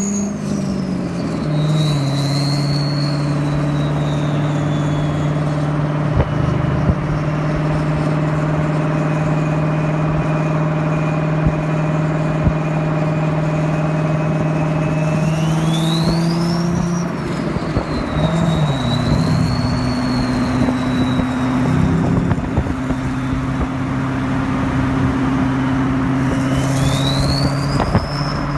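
Twin-turbo Corvette V8 driving, its turbochargers whistling over the engine note. The whistle climbs in pitch as the turbos spool up under throttle, about halfway through and again near the end, then falls back and settles into a steady lower whistle while cruising.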